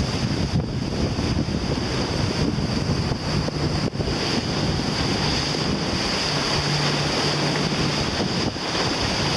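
Wind buffeting the microphone, loud and steady, over the rush of water and breaking waves around a sailing yacht running through rough seas.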